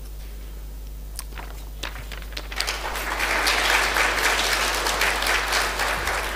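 An audience applauding: a few scattered claps at first, then the room breaks into full applause about two and a half seconds in, which tapers off near the end.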